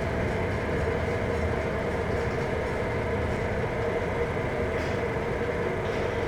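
Steady low rumble and hum of a ship's engines and machinery, with a constant tone running through it.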